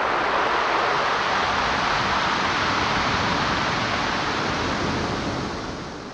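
Pacific Ocean surf: a wave washes up a gravel and pebble shore as one long rushing swell, building quickly, holding steady, then easing off near the end.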